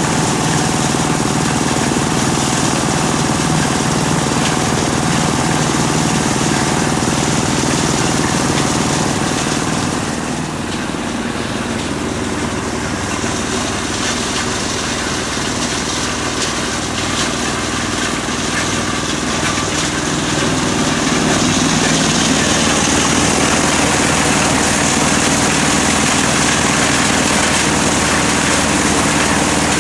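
Engine-driven corn sheller running steadily. It eases off slightly about ten seconds in and picks up again just after twenty seconds.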